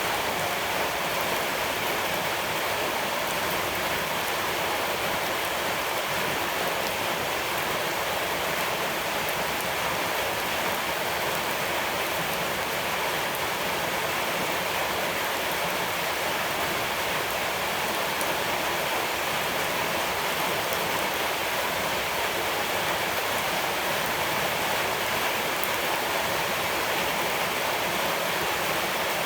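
Steady rushing water, an even, unchanging wash of noise with no breaks.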